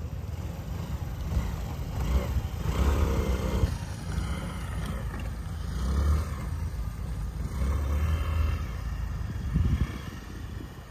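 Small motor scooter running at a distance as it rides across grass, with a low, uneven rumble that swells and fades several times.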